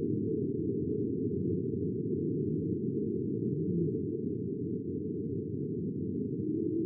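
Low, muffled ambient background track: a steady dull hiss with nothing above the low range, and a few faint, slow gliding tones drifting in and out.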